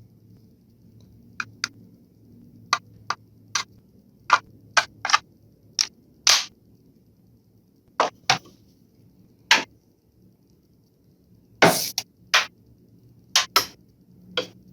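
Cordless drill running off a converted battery-cartridge power adapter, blipped on and off in about twenty short, irregular trigger bursts as the adapter is tested. A faint low hum sits underneath.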